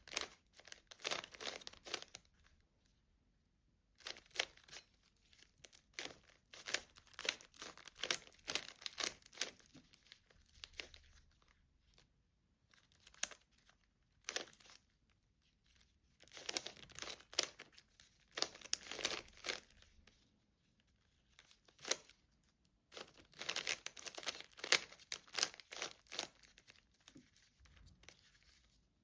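Plastic Rubik's cube being turned fast during a solve: quick runs of clicking and rattling as the layers snap round, in bursts of a few seconds with short pauses between them.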